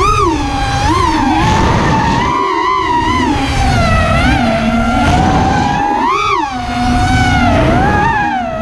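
FPV racing quadcopter's brushless motors (MB 2207, 2580 kV) spinning Gemfan 5152 tri-blade props: a whine that rises and falls in pitch with the throttle, with several quick punches up and back, over a rush of wind noise.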